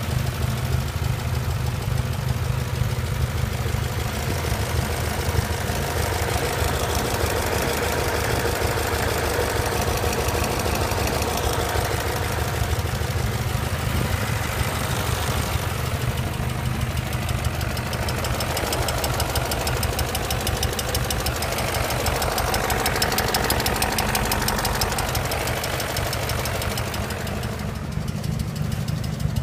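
BMW E39 M5's S62 V8 engine running with a fast, steady knock, which the owner suspects may be rod knock.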